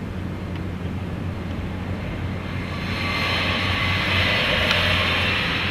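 Mercedes-Benz W123 200T estate with its 2.0-litre four-cylinder inline engine driving past. A steady engine hum runs throughout, and tyre and wind noise swells about halfway through, loudest around four seconds in as the car comes alongside.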